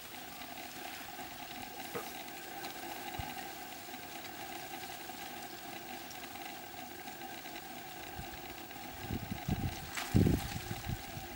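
Advancing basalt lava flow front giving a steady low hiss, with a few faint clicks and crackles of its crust. Wind buffets the microphone in gusts near the end.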